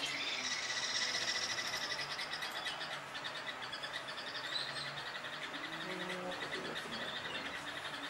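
Steady outdoor chorus of rapid, pulsing trills from insects and frogs, with a few short bird chirps.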